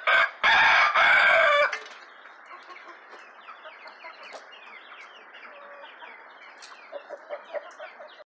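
A rooster crows once, loud and close, right at the start. After that, a flock of hens and roosters keeps up a steady soft clucking and chirping.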